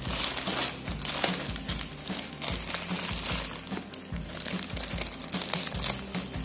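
Plastic courier mailer bag crinkling as hands handle it and pick at its sealed edge, in irregular crackly rustles.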